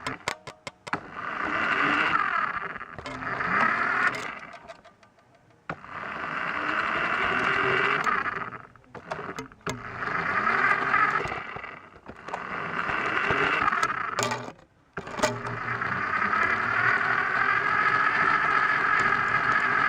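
A toy remote-control car's small electric motor and gears whirring in about five short runs with brief stops between, the pitch wavering as it speeds up and slows down. It is heard up close, from a camera riding on the car.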